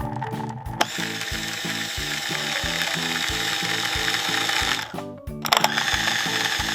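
Rapid, continuous clattering of many gumballs pouring into a toy blender jar, breaking off briefly about five seconds in and starting again. Background music with a steady beat plays underneath.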